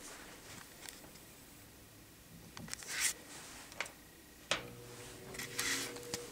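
Clicks and rustling as a 1960–62 GE W-13 box fan is handled. About four and a half seconds in comes a sharp click, and the fan's electric motor starts a steady hum.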